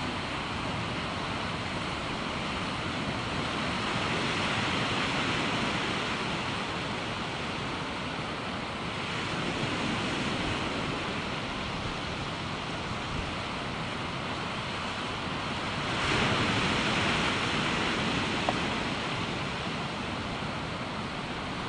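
Surf washing onto a beach in a steady rush, swelling louder about four seconds in and again about sixteen seconds in.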